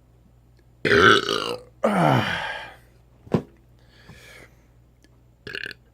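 A man burping after chugging a can of carbonated Mountain Dew: two loud burps back to back about a second in, each close to a second long, the second falling in pitch. A short click follows.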